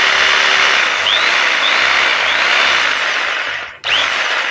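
XCORT XMQ01-65 electric jigsaw running. Its motor stops abruptly near the end and starts straight back up, with a rising whine as it spins up again.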